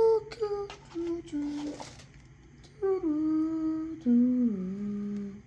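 A man humming in long held notes that step up and down in pitch, with a few short clicks and a rustle of handling in between.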